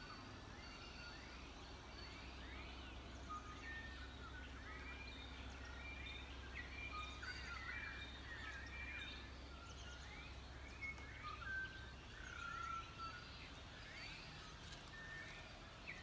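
Faint dawn chorus of many small birds: short chirps and whistled notes that slide up and down, overlapping one another, over a low steady hum that fades out about three-quarters of the way through.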